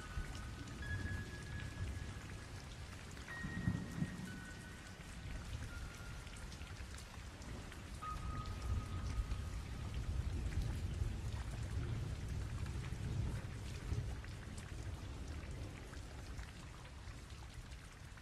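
Steady rain with low rolling thunder, with a few faint held high notes over the first half.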